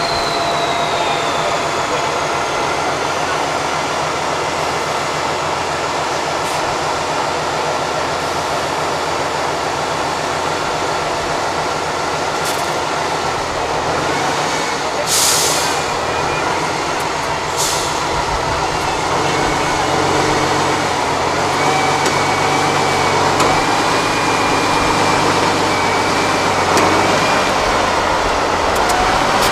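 Eight-wheel-drive trial truck's diesel engine running steadily under load as the truck crawls through a steep dip, its note shifting up and down in the second half. Two short hisses cut in about halfway through.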